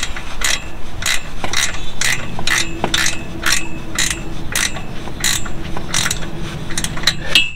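Hand ratchet wrench clicking in steady strokes, about two to three clicks a second, as a 9/16 nut is tightened; the clicking stops near the end.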